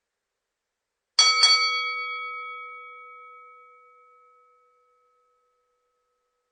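Boxing ring bell struck twice in quick succession, a sharp ding-ding, then ringing out and fading over about three seconds.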